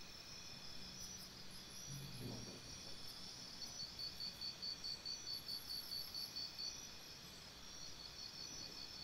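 Faint crickets chirping, a steady run of quick, high-pitched pulses.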